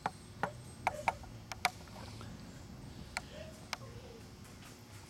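A handful of short, sharp clicks and taps at irregular intervals, most in the first two seconds and two more past the three-second mark, over quiet room tone with a faint steady hum.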